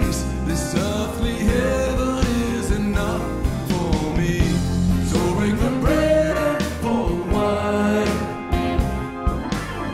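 A song: a singing voice over a band, with drums keeping a steady beat.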